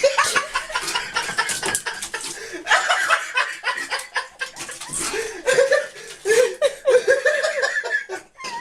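People laughing in short, repeated bursts.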